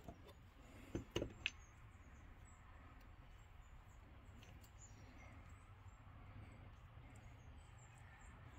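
Near silence with a faint steady hum; about a second in, a few quick light clicks and knocks as the coilover shock body and small parts are handled and set down on the workbench.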